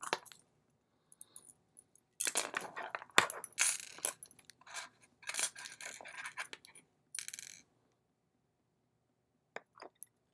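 Small metal parts of a padlock being worked apart by hand: a run of sharp clicks, knocks and short scrapes in the middle, with a couple of faint clicks near the end.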